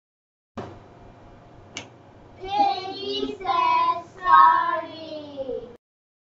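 A young child's high voice in a sing-song reading cadence, three drawn-out words, after a short click; the sound cuts off suddenly near the end.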